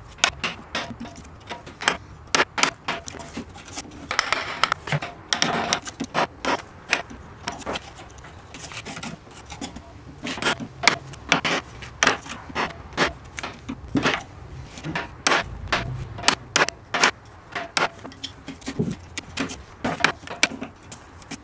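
A wooden mallet turned from a baseball bat knocking a wood chisel into a board, in many quick, irregular taps, with stretches where the chisel is pushed and scraped through the wood by hand.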